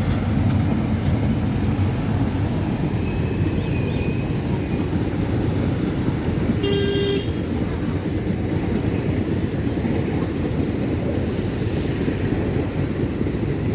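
Flooded river rushing past in a steady, loud roar. About halfway through, a vehicle horn toots once, briefly.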